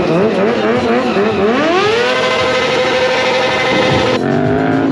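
Sportbike engine revving in quick up-and-down blips, then climbing and held at a steady high pitch during a smoky rear-tire burnout. A little after four seconds the sound changes abruptly to another rev that rises and falls.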